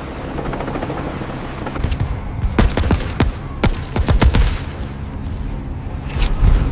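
A steady noisy rumble, then from about two seconds in an irregular series of sharp cracks and bangs over deep low booms, like a burst of gunfire in a cartoon soundtrack.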